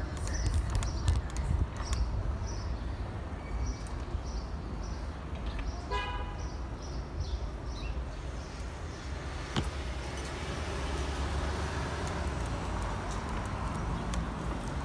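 Steady low rumble of wind on the microphone and city traffic while cycling down a street, with one short horn toot about six seconds in.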